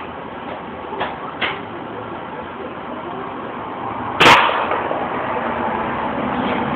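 Airsoft L96A1 spring sniper rifle: two faint clicks, then a single sharp, loud shot a little after four seconds in, followed by a rustle of handling.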